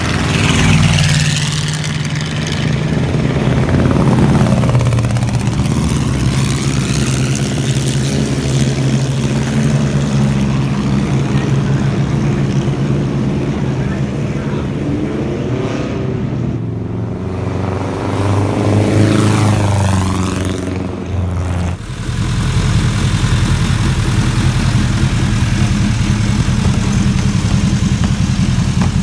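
Vintage racecar engines running on track, with cars going by several times, their pitch sweeping as they pass. About two-thirds of the way through, the sound cuts abruptly to a single racing engine running steadily up close.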